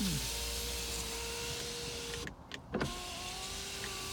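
2008 BMW 328i power window motor running with a steady whine, stopping about two seconds in with a clunk, then running again with a higher-pitched whine.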